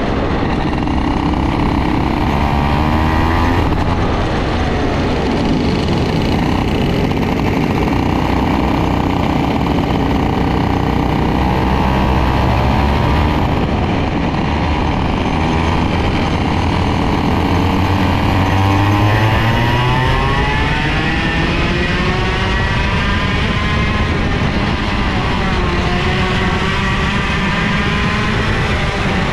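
IAME KA100 single-cylinder 100cc two-stroke kart engine heard onboard at racing speed, its pitch rising and falling again and again as the kart accelerates down the straights and lifts for the corners.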